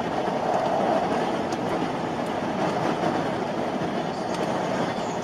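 Steady rumble of road and tyre noise from a vehicle driving at highway speed.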